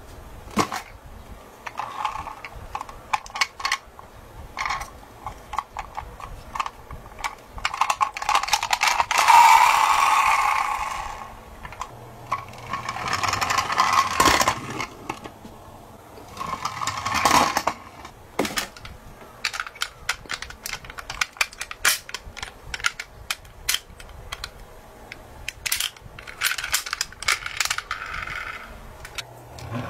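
Toy minicars clicking and clattering against each other and a cardboard box as they are picked up and handled. Partway through, a toy ambulance's wheels rattle as it rolls along a wooden ramp.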